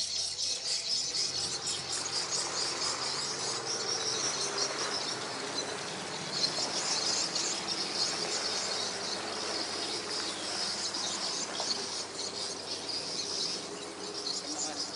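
Steady chorus of insects, a dense high-pitched chirring that goes on without a break.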